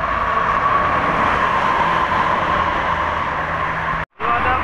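Hino-engined coach passing close by on a highway: steady engine and tyre noise with a steady high whine. The sound cuts out for a moment near the end.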